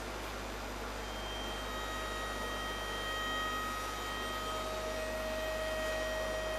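Steady hiss and low mains hum of a quiet hall, with a few faint high tones held steadily from about a second in.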